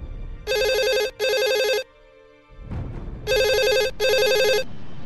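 A phone ringing with a classic double ring: two pairs of rings, the second pair about three seconds after the first.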